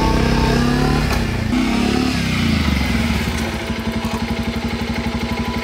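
Motorcycle engine running as the bike is ridden, then settling into a steady, evenly pulsing idle about halfway through.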